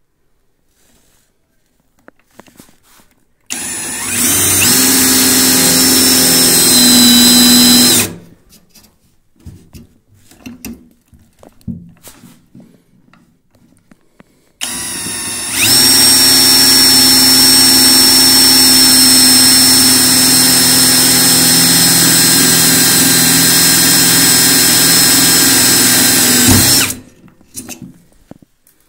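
Cordless drill (Patuopro) running at full speed in two long runs, the first about four seconds and the second about twelve, each starting briefly lower before settling into a steady whine. It is drilling a twist bit through the steel frame of a wall-hung toilet installation.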